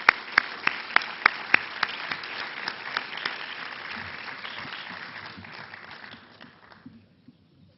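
Audience applauding, with one pair of hands clapping close to the microphone at about three claps a second for the first few seconds. The applause dies away about a second before the end.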